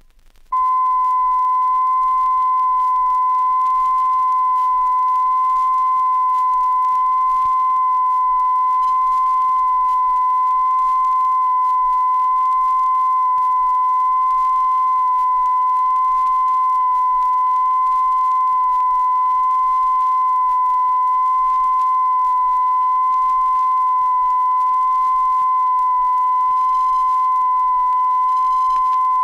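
Steady sine test tone from the maximum-level band of a 1988 Electrecord stereo test LP, played back from the vinyl. It starts about half a second in and holds unchanged and loud, with a faint overtone an octave above.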